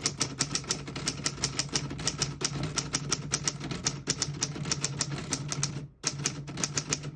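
1938 Corona Standard manual portable typewriter being typed on at a steady pace: a quick run of sharp key strikes, about five or six a second, with a short pause about six seconds in.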